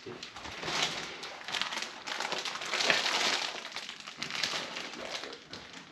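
Plastic packaging crinkling and rustling as it is handled, in uneven bursts that are loudest around the middle.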